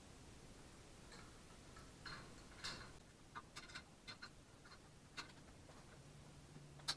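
Scattered faint metallic clicks and clinks of wrenches and small engine parts being handled during an engine teardown, unevenly spaced, with one sharper click near the end.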